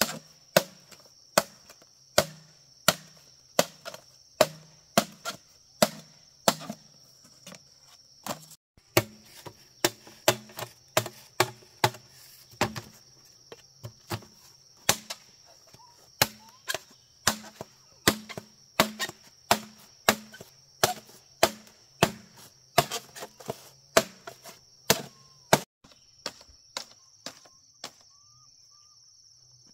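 Wood being chopped with steady, rhythmic blows, about one and a half to two a second, each with a short hollow ring; the chopping stops about four seconds before the end. A steady high-pitched insect drone runs underneath.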